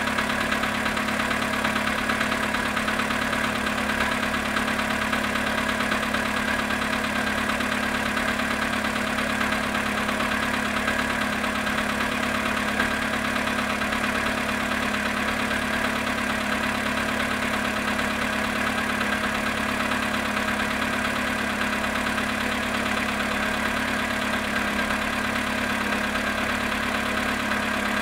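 Volkswagen Polo sedan engine idling steadily after a cold start at −7.5 °C, with the knock that the owner is recording in its running.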